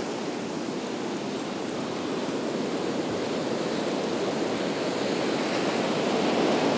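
Ocean surf breaking and washing up the beach: a steady rush that slowly grows louder.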